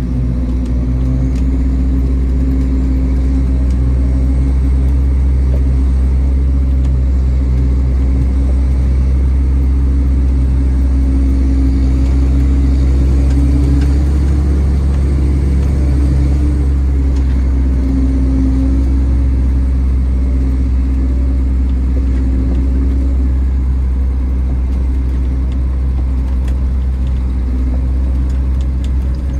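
PistenBully 600 Park snow groomer's diesel engine running steadily under load, a low drone heard from inside the cab as the front blade pushes snow.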